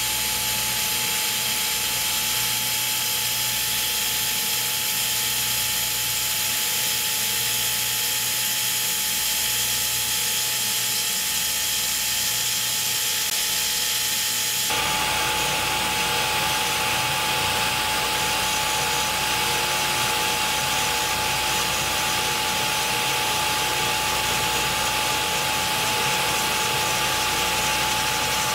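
Cutter grinder's wheel running against a turning steel bolt in cylindrical grinding: a steady grinding hiss with a constant high whine. The sound changes abruptly about halfway through, becoming fuller and lower.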